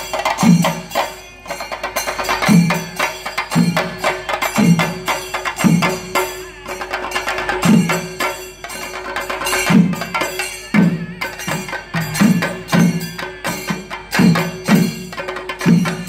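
Chenda drum ensemble playing for a thira ritual dance: a dense run of fast drum strokes with deep beats landing roughly once a second, and a steady held tone underneath at times.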